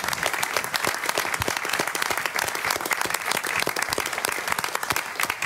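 Audience applauding in a meeting room: dense, steady clapping from many hands.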